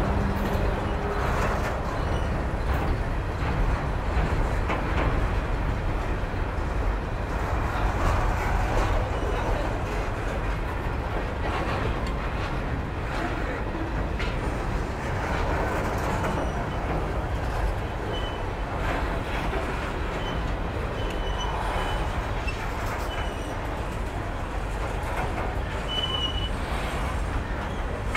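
Freight cars of a CSX train rolling past at steady speed: continuous wheel-on-rail rumble with clicks from the wheels. In the second half there are a few brief high wheel squeals.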